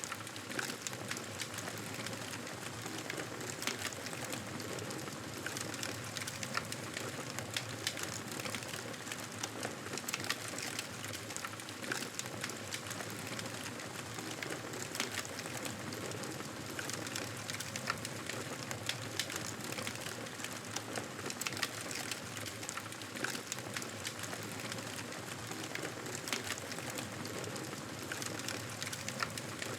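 Wood fire crackling in a fireplace: a steady hiss with many sharp, irregular pops.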